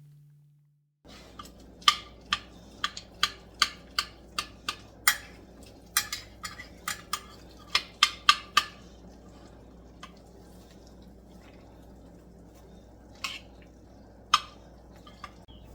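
A utensil clinking and knocking against a dish, in a quick run of sharp clicks about two or three a second for several seconds. It stops, and two more single knocks come near the end.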